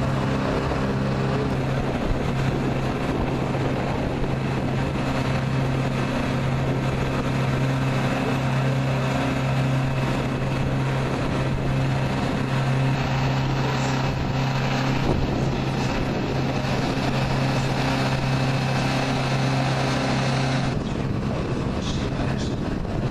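A steady, low machine hum with wind buffeting the microphone. The hum cuts off abruptly near the end.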